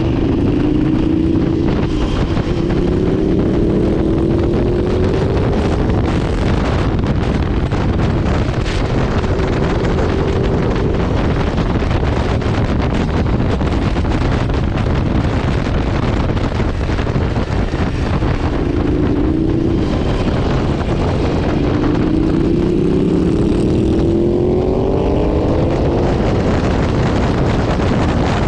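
Aprilia RSV4 RF's V4 engine accelerating hard through the gears, its pitch climbing in stepped sweeps twice, under heavy wind rush on the microphone.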